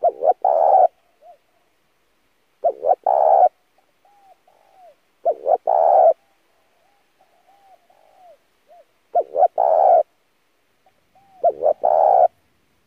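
Spotted dove cooing: five phrases, each of two or three short notes running into a longer, louder coo. Softer short notes fall in the gaps between the phrases.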